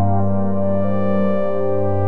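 Ambient modular-synthesizer music from a VCV Rack patch: a steady low bass drone under sustained pentatonic synth notes, the melody stepping down in pitch twice.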